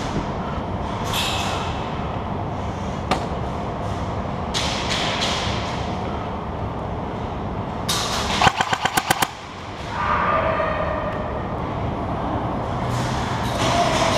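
Airsoft electric gun firing a short rapid burst of about seven shots in under a second, around the middle, over a steady background noise with a few single sharp clicks.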